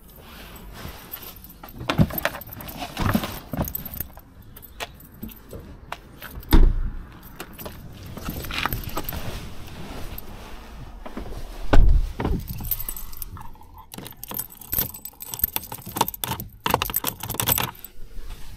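A bunch of car keys jangling and clinking, mixed with footsteps and handling knocks, and two heavy thumps.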